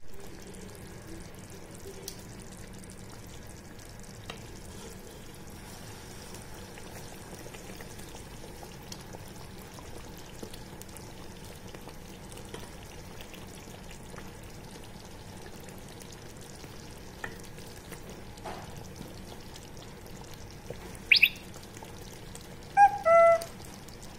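Lentil-dumpling curry simmering in a pan over a medium flame: a steady low sizzle with faint small pops and clicks as a wooden spatula stirs it. Near the end there is a brief sharp high sound, then two short pitched tones close together.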